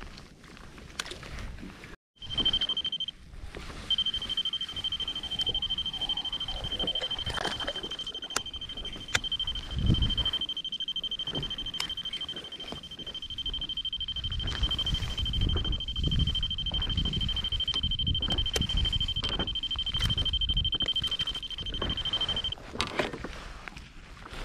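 An electronic alarm gives one steady high beep tone. It sounds briefly about two seconds in, then after a short gap runs unbroken until a couple of seconds before the end. Under it are low knocks and rustling from handling gear on an inflatable board, with water lapping against the hull.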